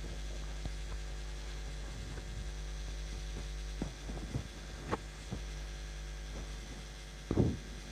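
Steady low electrical hum, with a few faint clicks and rustles as an elastic strap and a plastic phone holder are handled, and one dull thump near the end.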